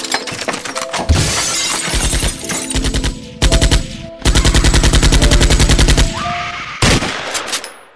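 Sound-effect shootout: bursts of rapid automatic gunfire, the longest and loudest run about four to six seconds in, with a single loud shot near the end.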